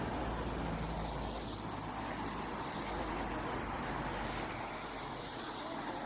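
Steady outdoor street noise: road traffic with some wind on the microphone.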